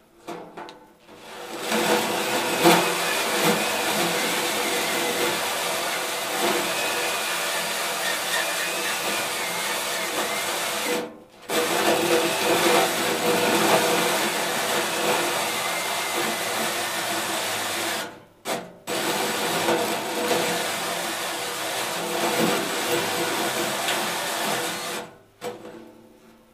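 Cordless drill turning a 4.5-inch hole saw, its teeth grinding through the top of a sheet-metal enclosure. The cutting runs steadily in three stretches, stopping briefly twice, and ends shortly before the close.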